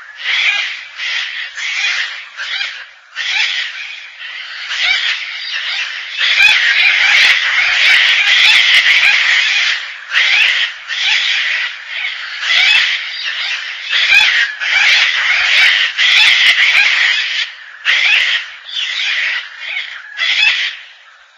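Gang-gang cockatoo giving repeated harsh, raspy calls in short runs with brief gaps, coming almost without pause through the middle stretch.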